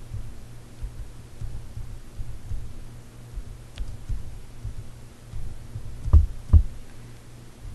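Low steady hum with soft, irregular low thumps; two louder thumps come about six seconds in.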